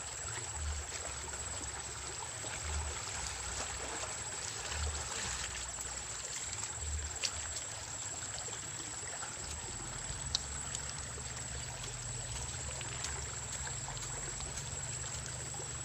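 Small river flowing, a steady running and trickling of water, with a couple of sharp clicks partway through.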